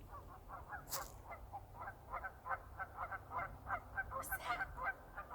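A couple of Canada geese honking over and over, a run of short, faint honks at about three to four a second.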